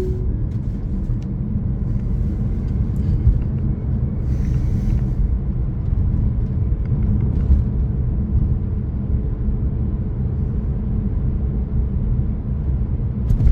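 Steady low rumble of tyre and road noise from a Tesla driving along.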